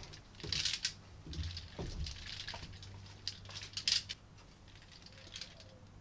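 Magnetic mesh bug-screen door curtain rustling as someone walks through it, its halves swishing and clicking back together in a series of short scratchy rustles and a few light clicks over the first few seconds.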